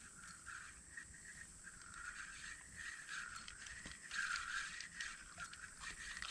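Fishing reel being cranked to retrieve a cast jig, a faint gear whir that swells and fades with small clicks, loudest a little past the middle.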